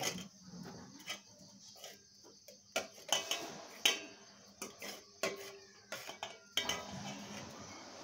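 Metal spoon clinking and scraping in a metal cooking pot and against steel bowls: a string of irregular sharp clinks and knocks, each ringing briefly.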